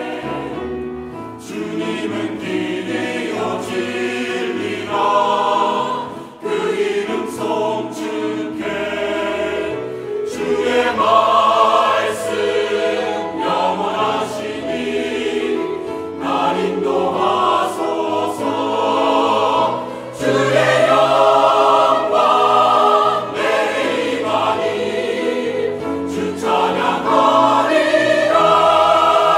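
Mixed church choir of men's and women's voices singing a Korean anthem in Korean, with instrumental accompaniment underneath, swelling louder in places.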